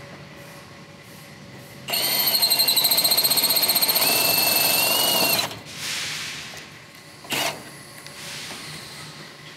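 Cordless drill driving a self-drilling, self-tapping sheet-metal screw into the steel door, running with a steady high whine for about three and a half seconds from about two seconds in, its pitch stepping up partway through. A short sharp click follows a couple of seconds after it stops.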